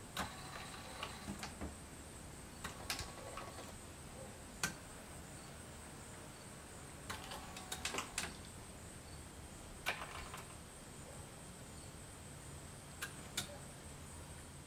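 Homemade robot arm's joint motors run in several short spurts of about a second under manual control, each with a faint whine and sharp clicks as it starts and stops.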